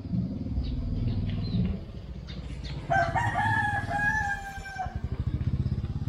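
A rooster crowing once, a single drawn-out call of about two seconds starting about three seconds in, over a low rumble.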